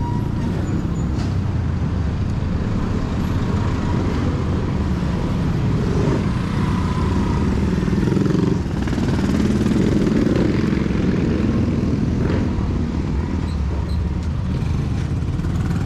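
Steady outdoor street noise dominated by a running vehicle engine, a continuous low rumble with no pauses.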